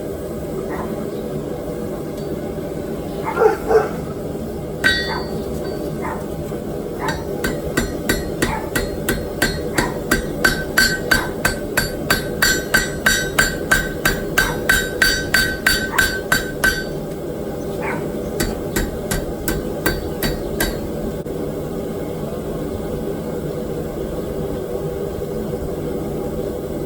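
Hammer blows on hot steel at an anvil. A run of ringing strikes, about two a second, lasts some twelve seconds, then a few scattered blows follow before the hammering stops.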